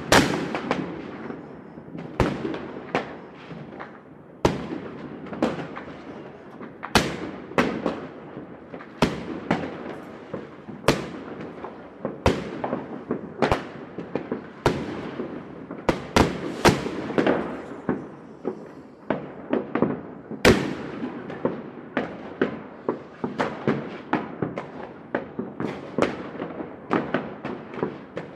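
Fireworks going off in a city: a steady string of sharp bangs, one to three a second, each echoing off buildings, over continuous crackling.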